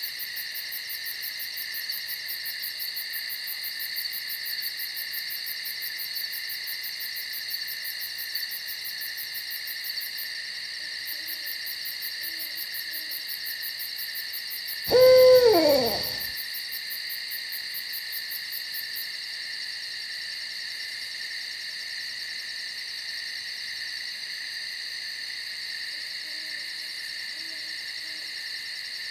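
An owl gives one loud hoot about halfway through, sliding down in pitch over about a second. A steady chorus of chirring insects like crickets runs underneath, and fainter low owl calls come twice.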